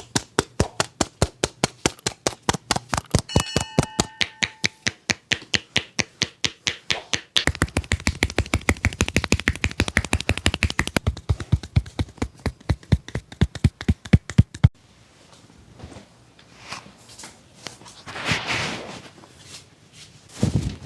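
Rapid, even hand taps and slaps of a barber's percussive head massage, about four or five a second. They grow faster and denser about seven seconds in and stop abruptly about fifteen seconds in, leaving softer, scattered rubbing and taps.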